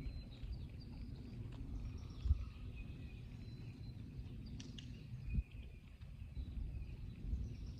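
Wind rumbling on the microphone, with faint bird chirps and a couple of soft thumps, about two seconds in and again past five seconds.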